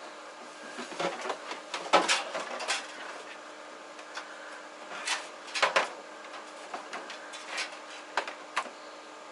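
Irregular knocks, clunks and clatters of hands handling and shifting things. The loudest comes about two seconds in, with a cluster of them a little past halfway.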